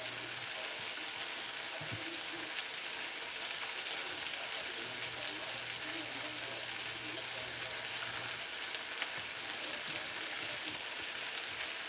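Cabbage frying in butter and olive oil in a skillet: a steady sizzle with small crackles.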